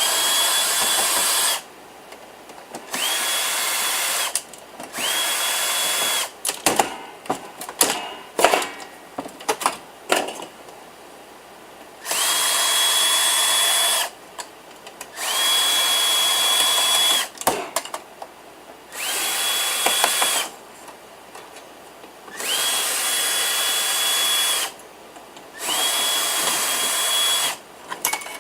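A power drill-driver runs in about eight short bursts of one to two seconds each, taking screws out of a desktop PC tower. At each start the motor whine rises quickly and then holds steady. Between the bursts, screws and metal parts click and clatter.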